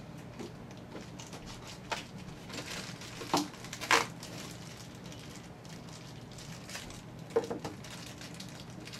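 Scissors cutting open a cardboard-and-plastic blister pack: a few sharp snips and crackles of stiff card and plastic, loudest about three and four seconds in, with a couple more near the end as the plastic is handled.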